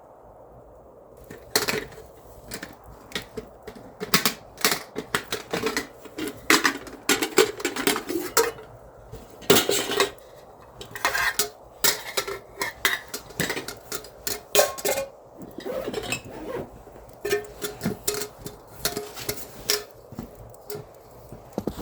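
Pots, pans and metal utensils clinking, knocking and scraping in an irregular run of sharp strikes, starting about a second and a half in.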